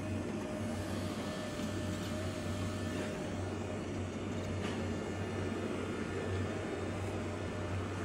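XWOW R2 robot vacuum and mop running on a rug: a steady mechanical whir, with a low hum that cuts in and out and a few faint clicks.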